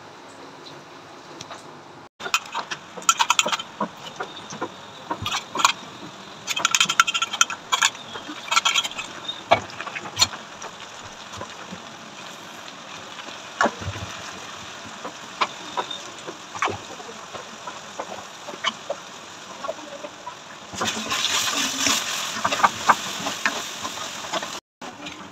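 Oil sizzling in a kadai while a steel spatula scrapes and clinks against the pan in bouts of stirring.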